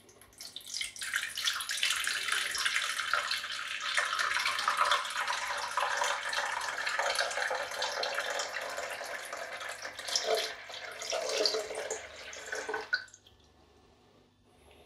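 Tap water poured steadily from a plastic measuring jug into an acrylic pico aquarium, splashing into the water gathering at the bottom. The pour stops abruptly near the end.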